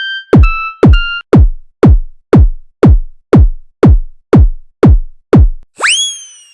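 Electronic synth music: a drum-machine hit with a steeply falling pitch, struck eleven times at about two a second. Near the end comes one whistle-like synth tone that swoops up and then glides slowly down.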